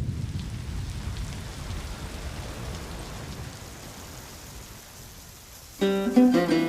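Steady rainfall hiss under a low rumble that fades over the first few seconds. About six seconds in, plucked acoustic guitar notes start up, louder than the rain.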